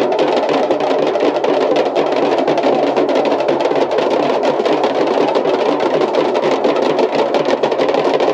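A group of large damru hourglass drums beaten with sticks in a fast, continuous roll, the strokes running together into a dense, steady rattle.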